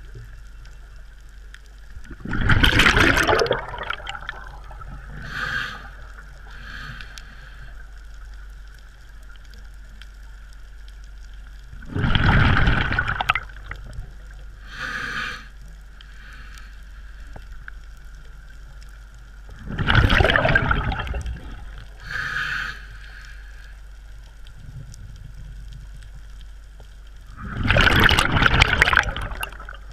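A scuba diver's regulator, heard underwater: exhaled breath bubbles out in a loud rush four times, each lasting about a second and a half and coming every eight to ten seconds. A shorter, fainter hiss follows a few seconds after each rush.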